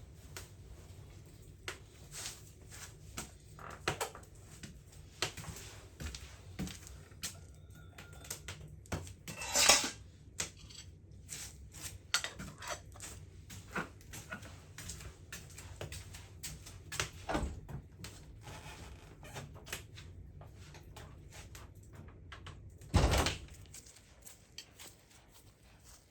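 Scattered light clicks, knocks and clinks of tableware during a meal, like cutlery on plates and cups being set down, over a faint low hum. Two louder, longer noises come about ten seconds in and near the end.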